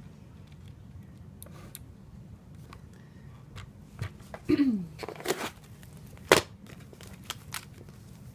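Drone packaging being handled: scattered clicks and knocks of plastic and cardboard, with a short falling squeak about halfway through and the loudest knock a little after.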